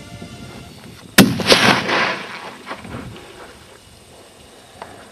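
A single rifle shot about a second in, followed by a rolling echo off the hillsides that fades away over about two seconds.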